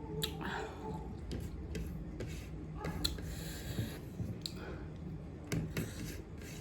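Close-up eating sounds: chewing with scattered small clicks and taps.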